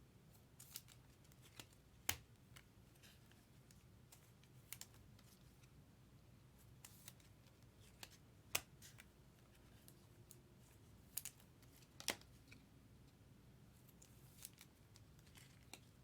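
Near silence, broken by about a dozen faint, sharp clicks and taps at irregular intervals, the kind made by handling small objects on a desk.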